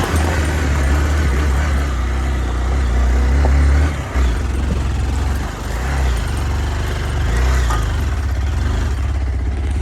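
Hero Xpulse 200's single-cylinder engine running as the motorcycle rides along, a steady low drone mixed with wind and road noise; the engine note drops briefly about four seconds in.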